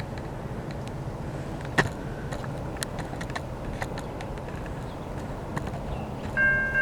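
Steady low outdoor rumble with scattered clicks, then about six seconds in a railroad grade-crossing bell starts ringing, a bright multi-tone ding repeating about twice a second as the crossing signal activates for an approaching train.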